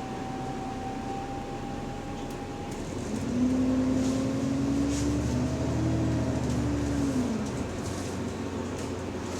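Bus drivetrain heard from inside the cabin while driving: a steady rumble with a thin whine for the first few seconds, then a louder engine and transmission note that rises about three seconds in, holds, and drops away after about seven seconds.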